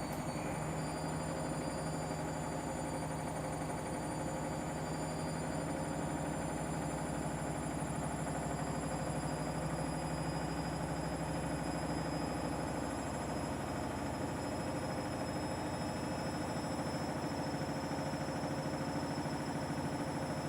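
Washing machine spinning on a 1600 rpm spin cycle: a steady hum and rumble from the drum, with a high motor whine that climbs slowly as the spin speed builds.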